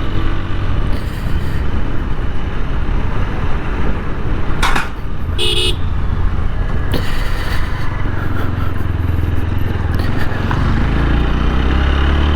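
A TVS Apache 160 4V single-cylinder motorcycle engine running steadily under way. A short horn toot sounds about five and a half seconds in.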